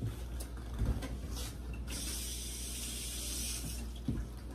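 Aerosol cooking spray hissing: a short spritz, then a steadier spray of about two seconds. Before it, a wooden spoon gives a soft knock in a stainless stockpot.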